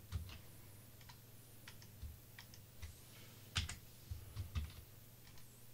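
Irregular, faint clicks of a computer keyboard and mouse being used, a dozen or so scattered taps with the loudest about three and a half seconds in, over a steady low hum.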